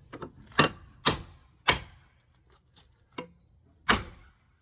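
About five sharp knocks, unevenly spaced, of a tool striking wood framing, each with a short ringing tail.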